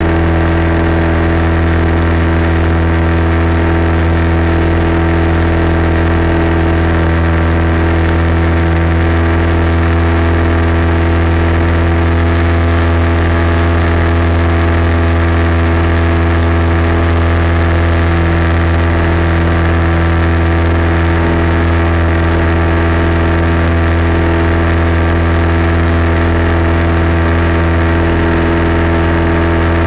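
Light aircraft engine and propeller running steadily in cruise flight, heard from inside the cockpit as a loud, even drone that holds one pitch throughout.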